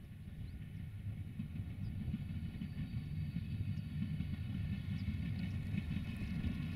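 CFR class 060-EA (LE 5100 kW) electric locomotive and its passenger coaches approaching. There is a low rumble with a whine in several tones above it, and both grow steadily louder as the train comes nearer.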